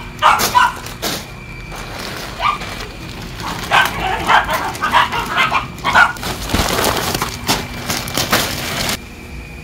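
Plastic bags of pond filter media balls crinkling and rustling as they are handled and lifted out of a cardboard box, with a dog barking several times, most between about four and six seconds in.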